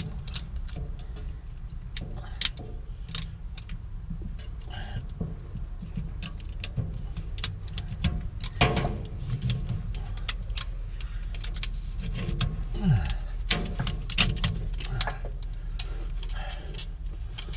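Irregular metallic clicks and clanks of a ratchet tie-down strap being worked by hand and released, over a steady low rumble.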